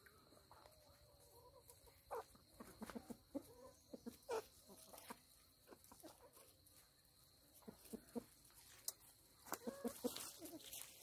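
Free-range chickens clucking softly in short scattered calls, bunched about two seconds in and again near the end, over a faint steady high tone.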